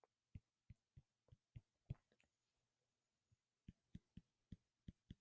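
Faint, short clicks, about three a second, in two irregular runs with a pause of over a second between them, from the input device as handwritten pen strokes are drawn. Otherwise near silence.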